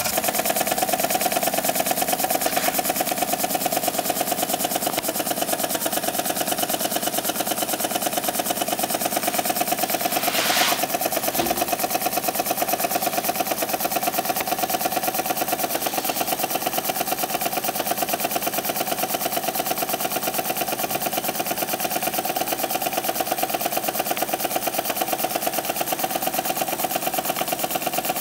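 PM Research Model 2A model steam engine running fast and steady, with a rapid, even chuffing and clatter from its cylinder. A brief sharp click comes about ten seconds in.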